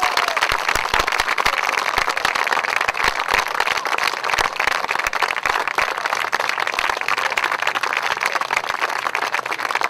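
Audience applauding: many hands clapping together, steadily.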